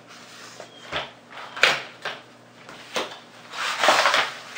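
Cardboard toy package with a plastic tray being opened and handled on a wooden tabletop: a few sharp knocks and clicks, then a longer scraping rub about four seconds in.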